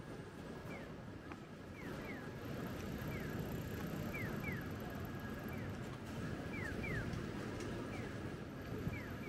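Japanese pedestrian-crossing audible signal sounding its electronic bird-like chirp, one short falling chirp then two, repeating about once a second, which signals that pedestrians may cross. Steady street traffic noise runs underneath.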